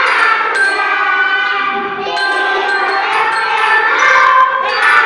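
A group of young preschool children singing a song together.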